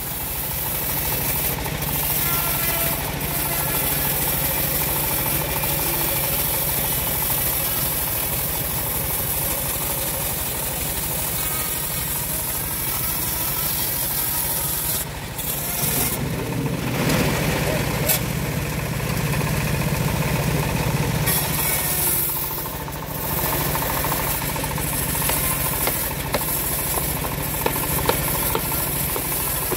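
Homemade engine-driven bandsaw mill running steadily while its blade saws through a large acacia log, with a louder stretch of about five seconds in the middle. Near the end come a few sharp knocks of a hammer on the log.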